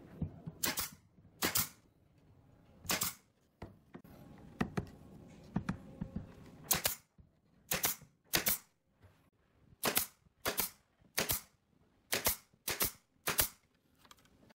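Pneumatic nail gun firing nails into pine boards again and again: about fifteen sharp shots, each a half second to a second and a half after the last.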